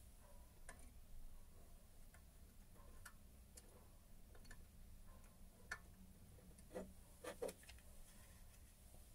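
Faint scattered clicks and taps of small metal parts being handled and adjusted on a lathe's dividing jig, with a few slightly louder clicks about seven seconds in, over near silence.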